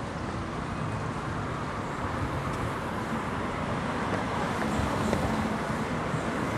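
City street traffic noise: a steady wash of passing cars, growing a little louder in the second half.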